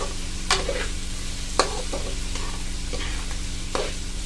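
A metal spatula scrapes and tosses chicken and vegetables around a black wok as they sizzle in hot oil, with a scrape about once a second; the sharpest comes about a second and a half in.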